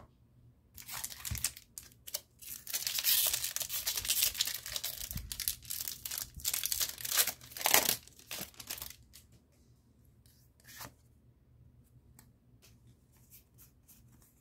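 Foil booster pack wrapper of Pokémon trading cards being torn open and crinkled, starting about a second in and lasting about eight seconds, then stopping, leaving faint scattered ticks of card handling.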